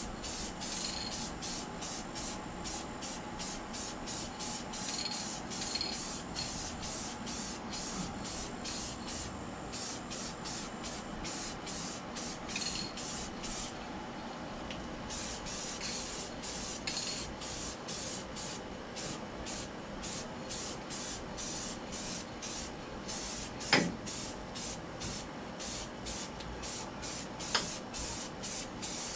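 Spray paint hissing as a car's firewall is painted, in short rapid pulses with a brief let-up about halfway through. Two sharp clicks stand out near the end.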